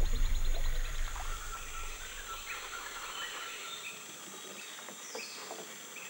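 Rainforest ambience: a steady high insect drone with scattered short bird and frog calls, and a rapid pulsed trill early on. The tail of the preceding music fades out over the first two seconds.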